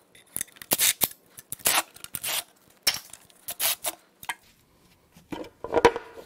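Cordless ratchet spinning out valve cover bolts in short trigger bursts, with metal clicks and clinks of tool and bolts between them. A louder clatter comes near the end.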